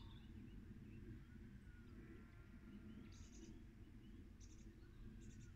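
Near silence: faint rural evening ambience with a low background hum and a few faint, distant animal calls and chirps.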